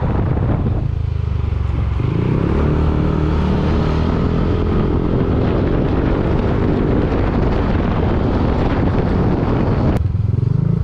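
Yamaha motor scooter's engine running under way, its note rising and falling a little with the throttle. A sharp click comes about ten seconds in, after which the engine note is lower as the scooter slows.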